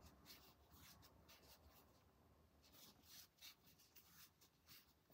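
Near silence with faint, irregular soft scratching and rustling of cotton yarn being pulled over a crochet hook and through stitches as double crochets are worked.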